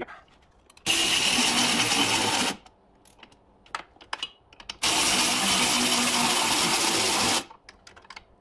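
Handheld power driver whirring in two steady runs, the second longer, as it spins nuts down onto new bolts; small metallic clicks between and after the runs.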